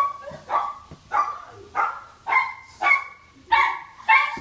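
A dog barking repeatedly in a steady rhythm, about one bark every half-second.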